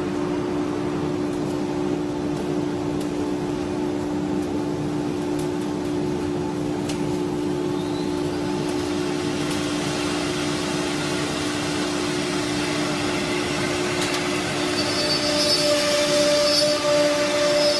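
CNC router running with a steady two-tone machine hum. About three-quarters of the way through, a higher whine joins and the sound grows a little louder as the spindle head moves over the board.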